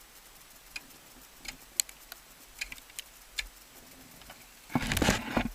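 Ice axe picks and crampon points against waterfall ice: a scatter of small sharp ticks and taps, then near the end a louder cluster of strikes into the ice lasting under a second.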